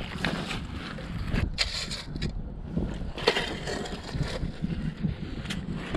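Wellington boots squelching and a shovel scraping and crunching through wet mud and shingle, with a few sharp crunches, the loudest a little past the middle, over a low rumble of wind on the microphone.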